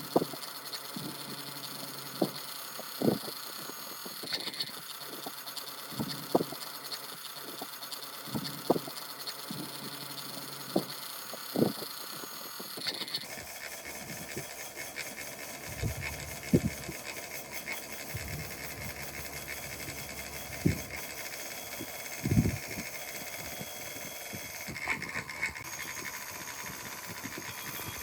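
Hand work on metal parts: scattered sharp clinks and knocks, one every second or two, over a steady hiss. The background hiss changes suddenly about halfway through.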